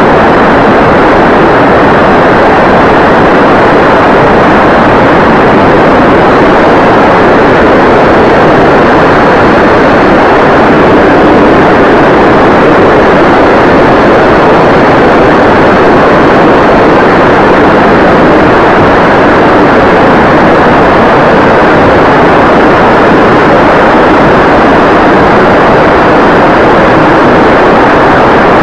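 Loud, steady wind rush and propeller noise from a foam-board RC plane in flight, heard through the small keychain camera it carries, with a faint high whine underneath.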